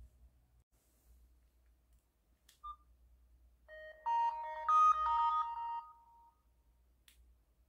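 Hype Smartwatch powering on: one short beep, then about a second later a short chiming startup melody of several notes lasting about two and a half seconds.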